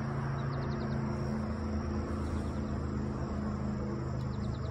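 A steady low hum with a few even pitch lines, like a distant engine, under insects chirping in short rapid trills that recur about every second and a half.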